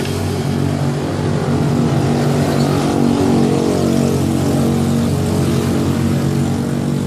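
A motor vehicle engine running steadily, its hum growing a little louder through the middle and easing off again.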